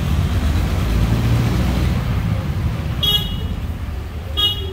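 Street traffic rumbling as a vehicle passes, with two short high-pitched toots, one about three seconds in and another just over a second later.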